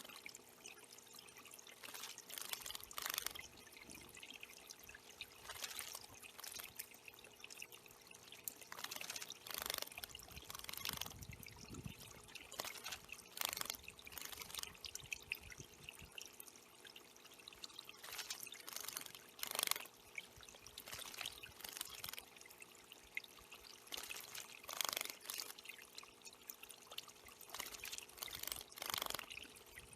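Water trickling and pouring in a small backyard bird pond, with irregular splashy bursts every second or two over a faint steady hum.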